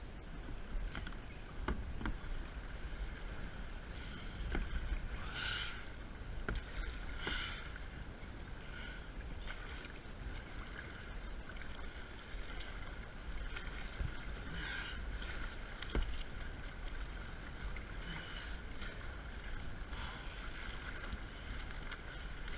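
Kayak being paddled through choppy water: irregular splashes from the paddle blades and water slapping the plastic hull every few seconds, over a steady low wind rumble on the microphone.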